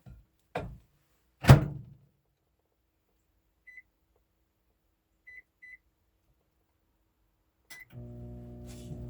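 Microwave oven being restarted: a few knocks and a loud thunk of the door shutting, then short single keypad beeps as the time is set, and the oven's steady hum starting near the end as it begins heating.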